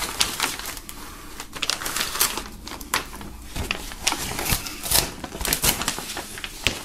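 Folded paper poster being pulled open, its stuck-together folds crackling and tearing apart in irregular snaps. The owner suspects the print had not dried before the poster was folded.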